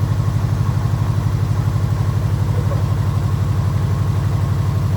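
2002 Subaru Legacy's boxer engine idling loudly with an even, rapid exhaust pulse; the car still has an exhaust problem that it was running with.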